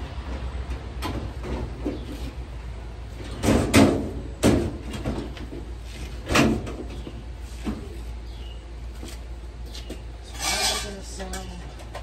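Sheet-metal top panel of a GE dryer clattering as it is lowered and pressed shut: three loud clanks a few seconds in, then a lighter knock.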